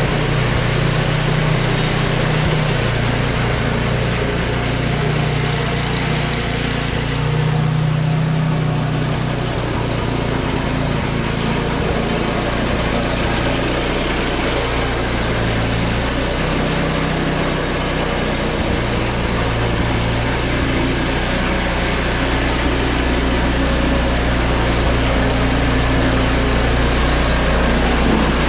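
Ariens ST824 snowblower engine running steadily, fitted with freshly replaced belts.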